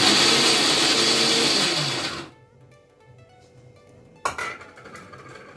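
Electric mixer grinder (mixie) running for about two seconds with carrot pieces in its jar, then its motor winding down with a falling pitch: a short pulse so the carrots are only coarsely ground, not juiced. A sharp knock follows near the end.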